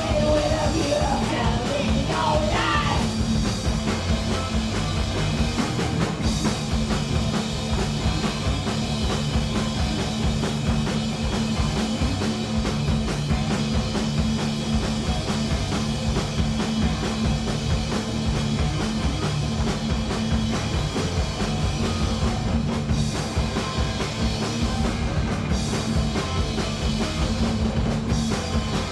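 Punk rock band playing live at full volume with drums, a sung line in the first few seconds giving way to the band playing on without vocals.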